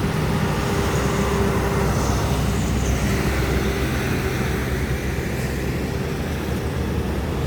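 Highway traffic on an uphill stretch: heavy diesel trucks and buses running past with a steady low engine drone and road noise.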